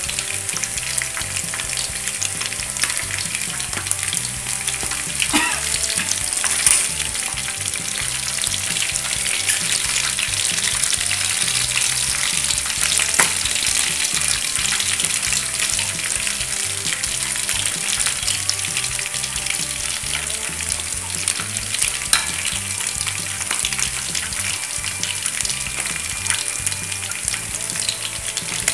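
Chicken pieces deep-frying in hot oil in a wok: a steady sizzle full of small crackles, with a few sharp clicks as the pieces are turned with chopsticks.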